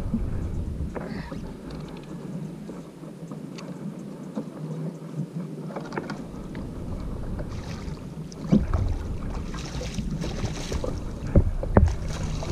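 Water sloshing and splashing beside a kayak as a hooked lingcod thrashes at the surface, with a few sharp knocks against the kayak near the end.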